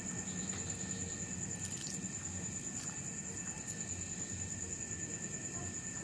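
Night insects trilling steadily in a high, even pulse, with faint rustling of a plastic bag being handled a few times.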